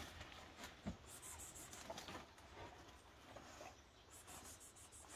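Faint rustling and brushing of large burdock leaves as a black leopard and a Rottweiler push through them, with a soft tap about a second in.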